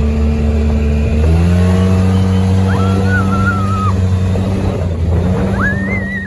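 Polaris RZR side-by-side engine running steadily under way. A wavering higher tone comes in twice, near the middle and near the end.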